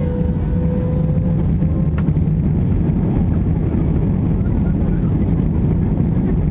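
Airbus A320-200 on its takeoff roll, heard inside the cabin: a loud, steady low rumble from the engines at takeoff power and the wheels running on the runway, swelling slightly at the start and then holding even.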